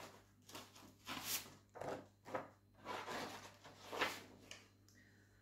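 Rustling and scraping as embroidery projects are handled and set aside: a string of short, soft rustles and scrapes that die away near the end.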